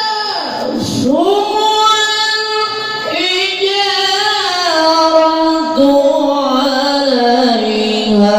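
Quran recitation (tilawah) by a male qari in a very high voice, drawn out in long, ornamented held notes that slide between pitches. The melody swoops down sharply about a second in, then climbs back and settles on a lower held note near the end.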